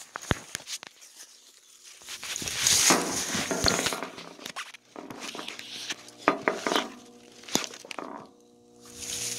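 Camera handling noise as it is set down in dry grass and fallen leaves: clicks, rustling and crunching in irregular swells. Near the end a small engine's steady hum comes in, the unmuffled 80cc Monster Moto mini bike's engine running.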